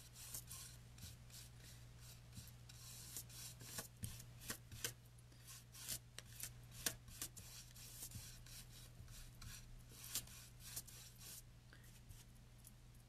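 Stiff paint brush dry brushing on a wooden board: irregular light taps and short scrapes of bristles on wood, stopping near the end.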